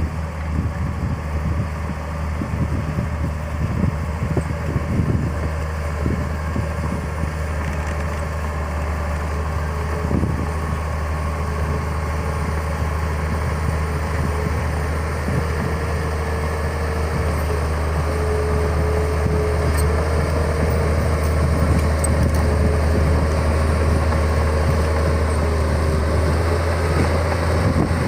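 Heavy construction machine's diesel engine running steadily with a low hum, growing a little louder toward the end.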